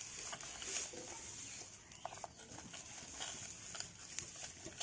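Faint crackle of a wood fire under a metal bowl of melting plastic: a steady high hiss with scattered sharp clicks.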